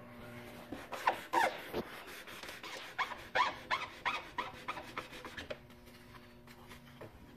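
Coarse-grit sandpaper on a hand sanding block rasping back and forth along a spray-painted table leg, sanding down dried paint runs. The strokes come in quick runs and grow softer near the end.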